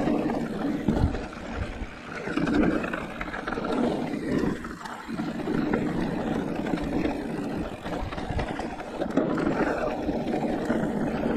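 E-mountain bike ridden fast down a dirt trail: a steady rushing of wind over the microphone and tyre noise that swells and eases, with a few knocks from bumps about a second in.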